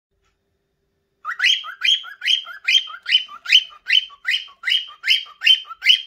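Cockatiel giving its mating call: a fast, even run of short rising chirps, about two and a half a second, starting about a second in. Cockatiels sing like this when hormonal, a sign of an adult bird wanting to mate.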